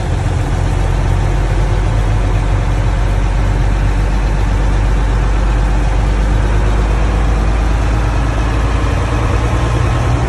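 Old Hino diesel engine of a non-AC bus running at low road speed, loud and steady, with the deep 'ngorok' (snoring) exhaust the bus is known for, heard from inside the cabin.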